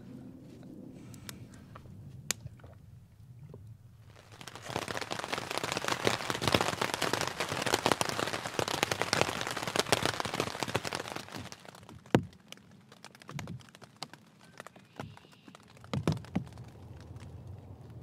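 Rain pattering on a tent: a dense, heavy patter from about four seconds in to about eleven seconds, then thinning to scattered single drops.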